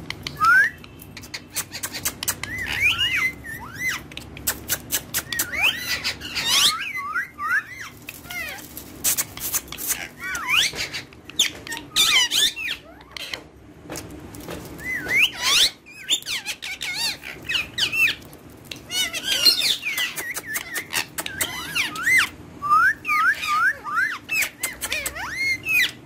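Indian ringneck parakeets chirping and squawking: runs of short, quick rising and falling calls, with many sharp clicks between them.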